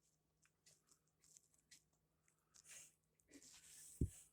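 Near silence with faint small clicks and rustles of a vintage calculator's plastic case and battery pack being handled, and a soft knock about four seconds in.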